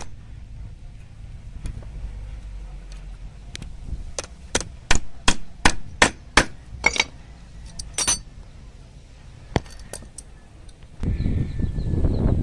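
Hammer striking a small homemade metal barb onto a spear-gun shaft: about nine sharp metallic blows, roughly three a second, starting about four seconds in. Wind rumbles on the microphone near the end.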